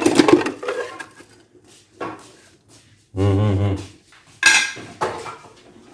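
A metal coffee spoon clattering against dishes as it is picked up, then a few lighter clinks. A short low hum of a voice a little past the middle.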